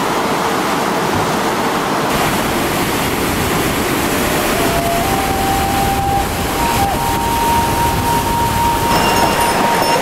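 White-water river rushing below, a loud steady roar. A faint thin steady tone comes in about halfway through and steps up in pitch twice.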